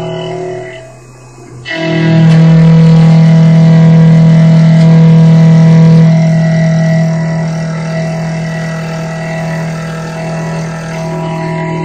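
CNC mill's end mill cutting an aluminium block under flood coolant, giving a steady pitched ring with many overtones. It drops away about a second in and comes back louder just before two seconds, easing a little after about six seconds.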